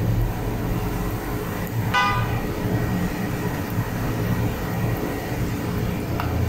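Hot oil sizzling and bubbling around crumb-coated chicken bread balls deep-frying in a pan, over a steady low hum. A brief high toot sounds about two seconds in.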